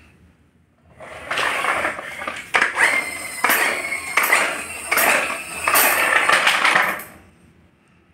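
Hard plastic toy wheels rolling and rattling over a tiled floor as a toy car is pushed and bumps into a plastic doll's stroller, with a series of knocks. The rolling comes in several loud pushes, starting about a second in and stopping about a second before the end.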